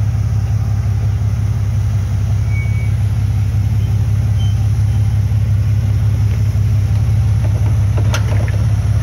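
Jeep Cherokee XJ engine running steadily near idle as the Jeep crawls slowly over rocks, a deep, even drone. A short, sharp click or crunch sounds about eight seconds in.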